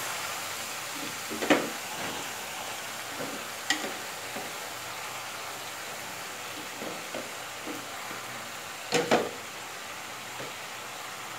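Chicken and a heap of freshly added spinach sizzling in an aluminium karahi over a gas flame: a steady frying hiss. A few light knocks come through it, the loudest a quick double knock about nine seconds in.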